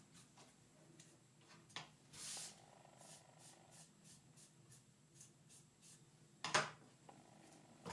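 Faint rubbing of a cloth wiping excess glue off a small glued wooden model part, with light clicks as the wooden pieces are handled and a sharper knock near the end.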